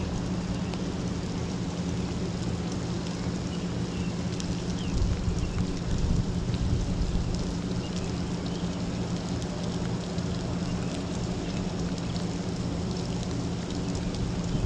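Steady rain falling, an even hiss with a few faint drop ticks, over a constant low hum.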